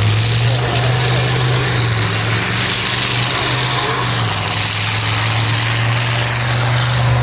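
Farm tractor's diesel engine running hard and steadily under heavy load as it pulls down a dirt track, with a slight shift in its pitch about four seconds in.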